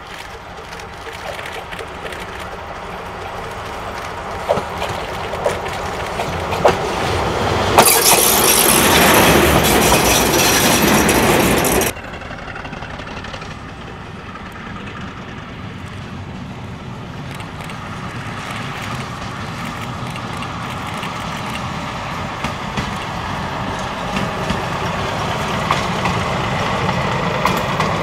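Vintage diesel railcar M 274.004 'Modrý šíp' approaching along the line, growing steadily louder, with a few sharp clacks from its wheels. It passes close and loud for about four seconds, then the sound cuts off abruptly. After that the railcar is heard approaching again from further off, slowly getting louder.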